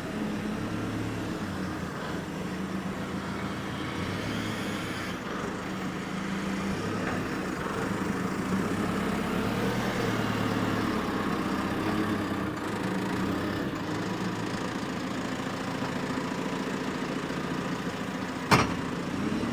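Engine of the lifting machinery running steadily, its level swelling a little in the middle. A single sharp knock near the end.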